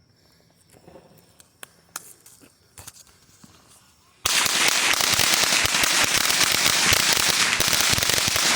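Firecrackers going off: a few faint pops, then a little over four seconds in a sudden loud, dense run of rapid cracks that keeps going without a break.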